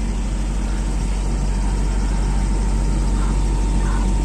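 Heavy-equipment diesel engine running steadily with a deep, even drone.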